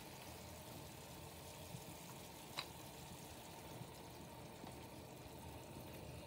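Faint, steady sizzle of a skillet of meatballs, peppers and tomato juice cooking over a gas burner as beaten eggs are poured in, with one light click about two and a half seconds in.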